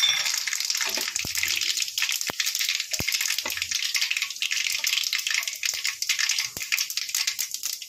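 Mustard and cumin seeds sizzling and crackling in hot oil in a nonstick kadai, the mustard seeds spluttering as the tempering cooks. A wooden spatula stirs through them, with a few sharp clicks scattered through the hiss.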